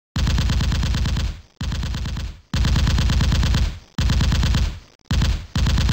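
Automatic gunfire in six bursts, each made of very rapid, evenly spaced shots. The bursts run about half a second to over a second each, and each one dies away quickly after the last shot.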